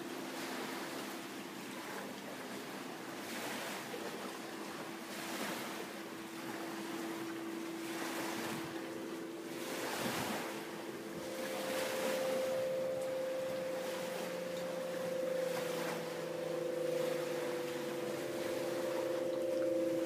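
Aeolian wind harp's strings sounding held, droning tones as the wind blows across them, with a higher tone joining about halfway through and a lower one soon after. Under the tones, a rushing noise swells and fades every second or two.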